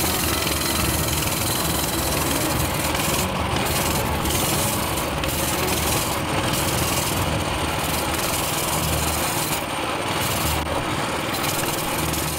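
A small engine running steadily, a loud, even noise with a fluctuating low rumble.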